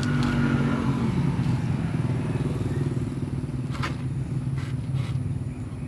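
A small engine running steadily with a low drone, settling slightly lower in pitch in the first second. A few light knocks come about four seconds in.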